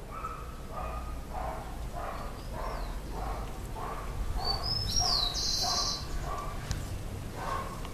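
Birds calling: one bird repeats a short call about twice a second, and near the middle a louder, higher whistle dips and rises, followed by a short high buzz.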